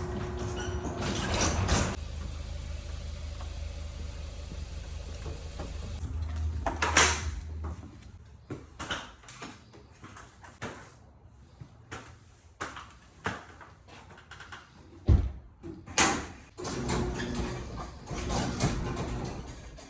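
Garage door opener running as the door travels, a steady low hum that ends with a loud knock about seven seconds in. Then scattered clicks and knocks, with a sharp thud a few seconds before the end.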